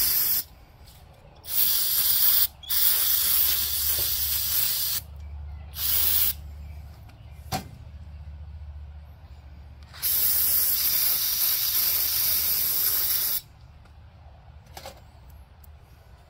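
Aerosol carb cleaner hissing in five bursts of spray, the last and longest lasting over three seconds, blown into a mini bike's carburetor with its bowl and float off to flush the float-needle seat. A short sharp click comes between the bursts.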